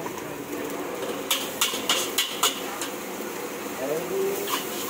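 Metal ladle striking and scraping a wok as fried rice is stir-fried, with about five quick sharp clanks about a second in. Voices murmur underneath.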